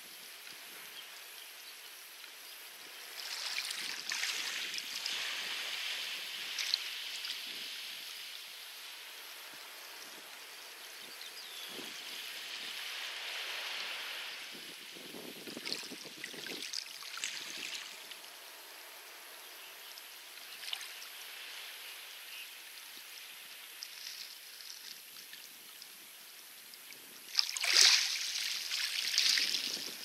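Light waves washing onto a pebble beach, coming in slow surges of hiss a few seconds long; the loudest wash comes near the end.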